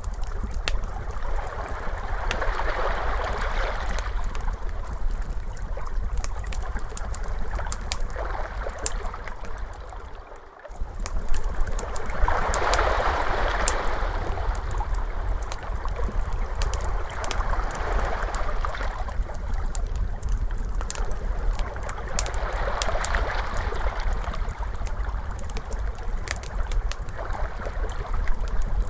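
Ocean waves washing in and out in slow swells a few seconds apart, with a wood fire crackling and popping over them. The sound dips out for a moment about ten seconds in.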